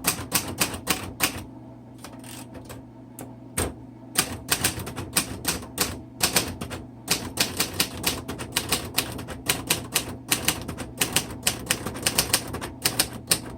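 1960 Royal Heritage portable manual typewriter being typed on: rapid, crisp key strokes. A short burst comes first, then a pause of about two seconds broken by a single stroke, then fast, unbroken typing.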